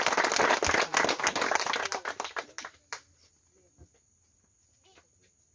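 A small crowd applauding by hand. The clapping thins out and stops about two and a half seconds in, leaving near quiet.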